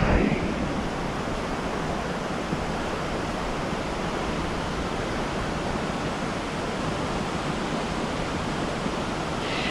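Steady rush of a river flowing.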